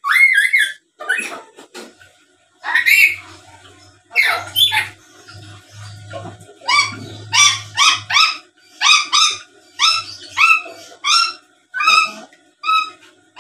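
Black-capped lory calling: a few loud harsh calls, then a quick run of short rising calls, about two a second.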